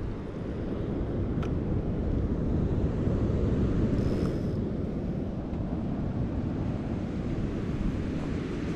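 Wind buffeting the microphone as a steady low rumble, over the wash of ocean surf.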